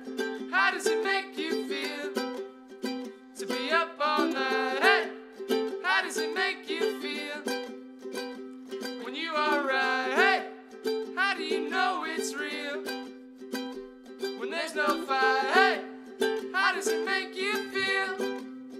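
Ukulele music: plucked chords with a voice singing over them in short phrases.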